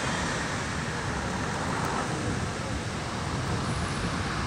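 Steady road traffic noise mixed with wind buffeting the microphone.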